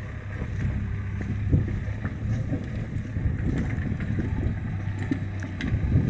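JCB backhoe loader's diesel engine running steadily with a low rumble as the machine drives and turns, with a few short knocks over it.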